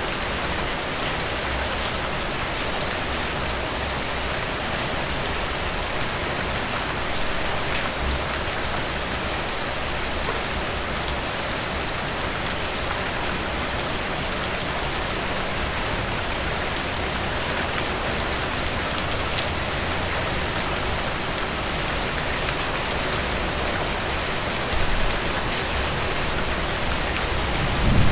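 Heavy rain falling steadily, with drops pattering on a surface. A low rumble swells in briefly near the end.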